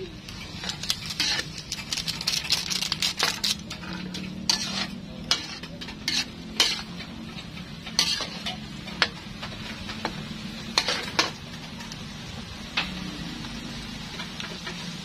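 Metal spatula scraping and clanking against a wok during stir-frying, with the food sizzling. The strokes come irregularly and thin out near the end, over a steady low hum.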